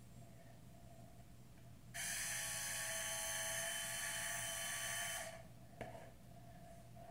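A small motor whirs steadily for about three seconds, a high whine, then stops. A short click follows.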